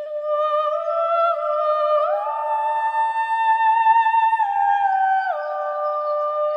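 A high solo voice singing a slow, wordless line of long held notes. It climbs about two seconds in, then steps back down in two stages near the end.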